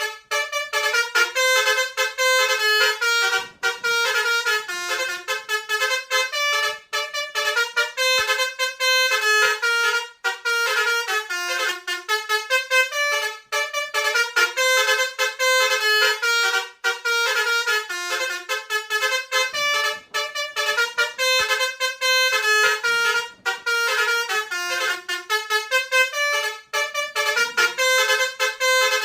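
Bus 'telolet' musical horn playing a fast tune of short stepped notes, phrase after phrase, with only brief breaks.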